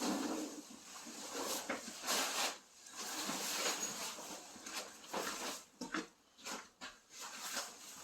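Hub-style ice fishing shelter being popped up by hand: its fabric rustles and flaps while the poles and hub knock and clack, in uneven bursts with a few sharp knocks.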